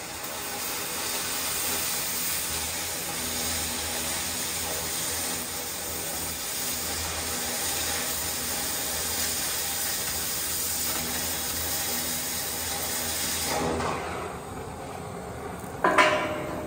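Oxy-fuel cutting torch hissing steadily as it burns through a heavy steel beam. The hiss drops away about 14 seconds in as the cut ends, and a short, loud burst of noise follows near the end.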